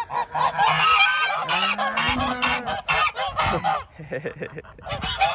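A flock of white domestic geese honking, with many overlapping calls and a short lull about four seconds in.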